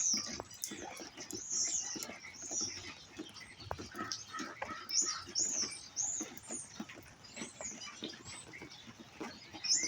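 Small birds chirping over and over in short, high, arching notes, with rain pattering underneath.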